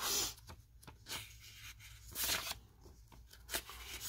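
Sheets of scrapbook paper sliding over one another as a stack is leafed through by hand: a few short papery swishes and rustles.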